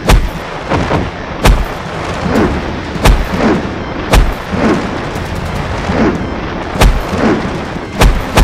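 Fight-scene sound effects: heavy booming blasts about once a second, with falling whooshes between them, over a dramatic soundtrack.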